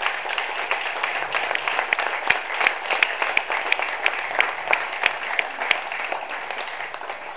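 Audience applauding, starting just before and fading near the end, with one person clapping close by in a steady beat of about three claps a second through the middle.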